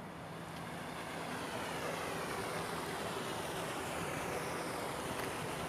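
A steady outdoor rushing noise, growing a little louder over the first two seconds and then holding even, with no distinct events.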